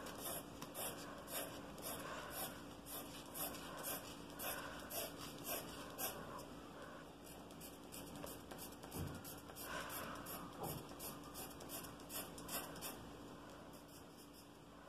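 Pencil hatching on paper: quick, faint scratching strokes at about two a second as curved shading lines are drawn back and forth, easing off for a moment midway and fading toward the end.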